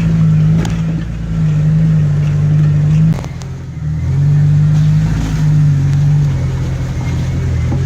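Stock Jeep Wrangler's engine working at low revs as it crawls slowly over a rough off-road trail, the engine note rising and falling with the throttle and easing off briefly about three seconds in.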